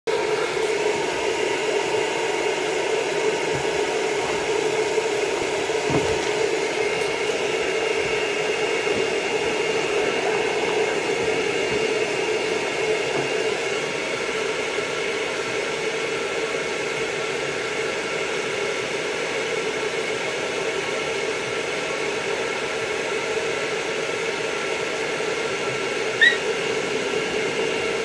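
Arm-mounted pet grooming dryer running steadily, a constant rush of air with a low hum, as a long-haired miniature dachshund's coat is dried. A brief high squeak sounds once near the end.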